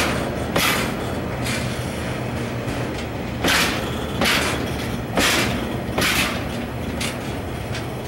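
Freight train of oil tank wagons rolling slowly past: a steady low rumble of the wheels, with sharp clacks as the wagons' wheel sets cross a rail joint, coming in pairs less than a second apart.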